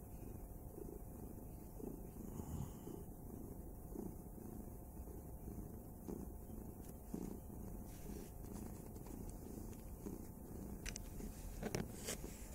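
Calico tabby cat purring on a lap, a low rumble that swells and fades in a regular rhythm. A few sharp clicks near the end.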